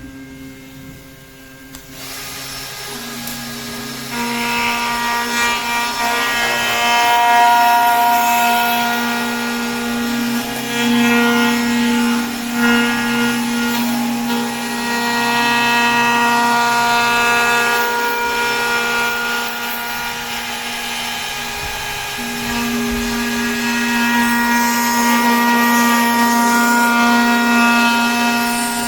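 Handheld electric power tool running and working on wood, a steady motor whine with a rasping, rubbing noise that varies as it cuts. It starts up about two seconds in and grows louder a couple of seconds later.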